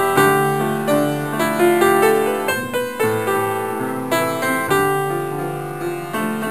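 Background piano music: a melody of struck notes that ring and fade.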